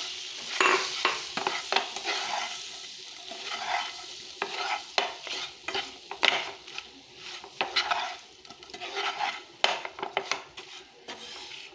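Boiled potato cubes being stirred and turned in a pan of hot ghee: irregular scraping strokes of the spatula against the pan over a light sizzle of frying.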